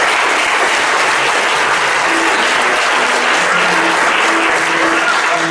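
Audience applauding steadily. About two seconds in, music starts playing faintly beneath the applause.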